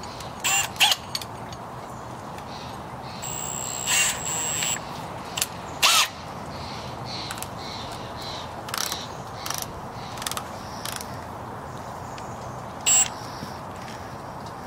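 Clicks and ratcheting of a Milwaukee cordless drill's keyless chuck being opened and tightened by hand to fit a long auger bit, in irregular sharp clicks, with a brief steady high whine about four seconds in.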